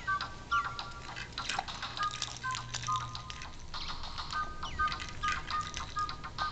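Electronic baby toy playing a simple tune of short beeping notes, with a brief gap partway through. Scattered clicks and rattles sound over it.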